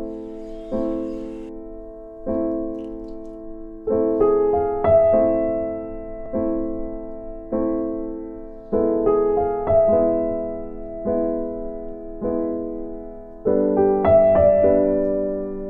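Slow, gentle piano music: chords struck about every one to two seconds and left to fade, with short runs of higher notes at a few points.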